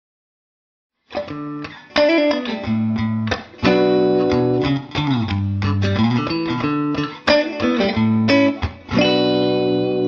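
Background music: the instrumental intro of a song, plucked guitar notes over a bass line, starting about a second in.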